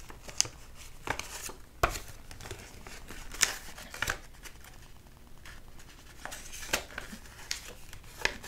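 Irregular light clicks and faint rustling, about one sharp click every second or so, over a low steady hum.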